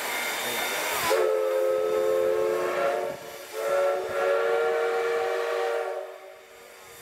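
Steam whistle of CK124, a C12-class steam tank locomotive, sounding two long blasts, each a steady chord of several notes: the first starts about a second in, the second follows after a short break. Steam hisses just before the first blast.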